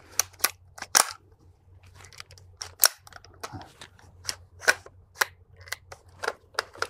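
Irregular metallic clicks and clacks of an AR-15 being worked by hand: bolt and charging handle moved and a cartridge handled as a bolt-override malfunction is set up, with a round wedged above the bolt.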